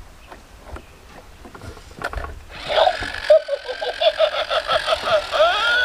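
Light plastic clicks of a coin being pushed against the mouth of a coin-eating face bank toy. From about halfway the toy's speaker plays its electronic sound effect, a fast run of repeated notes at about four a second ending in a rising sweep.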